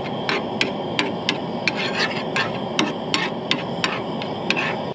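Teriyaki sauce heating in a hot pan over a burner: a steady sizzling hiss with sharp pops about three times a second.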